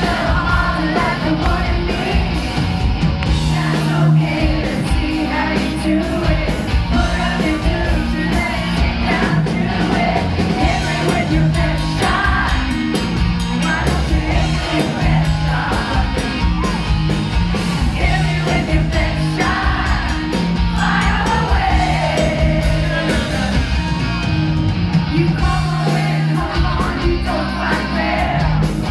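Live rock band playing: a woman singing lead over electric guitar, electric bass and drums, loud and steady, heard from among the audience.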